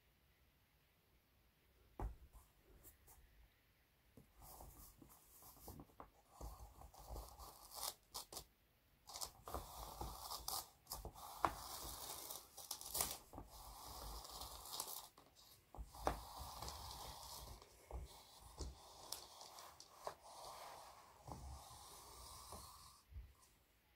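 Two graphite pencils scratching and scraping across a large sheet of paper in irregular strokes, with small clicks as the points catch. A single knock comes about two seconds in, and the scratching runs from about four seconds until just before the end.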